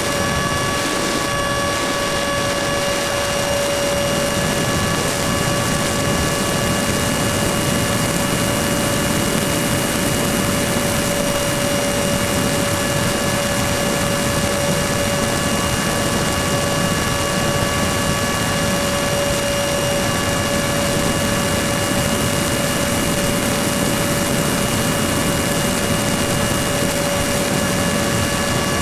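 Electric ducted-fan motor of a ParkZone Habu RC jet in flight, heard from the onboard camera: a steady high whine at constant throttle over rushing wind noise.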